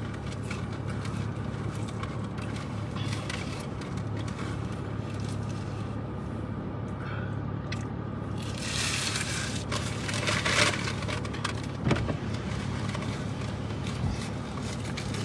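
Steady low hum of a car cabin, with crackling and rustling of paper food wrappers being handled, loudest for a few seconds past the middle.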